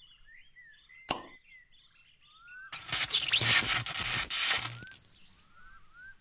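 Birds chirping, with a single sharp crack about a second in. Then, a little under three seconds in, comes a loud rushing whoosh lasting about two seconds, with a low pulsing underneath.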